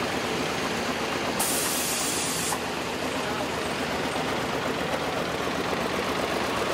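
John Deere Model A tractor's two-cylinder engine running steadily. A brief hiss of about a second sits on top of it about a second and a half in.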